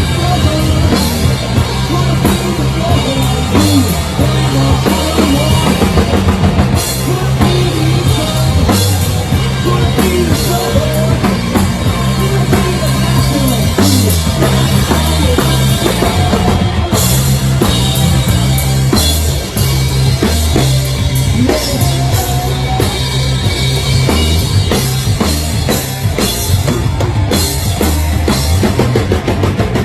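Stoner rock band playing live: a drum kit pounding a steady rock beat with kick and snare, under heavy amplified electric guitar and bass.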